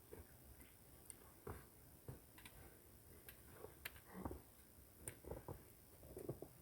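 Faint, irregular small clicks and knocks, a few every second.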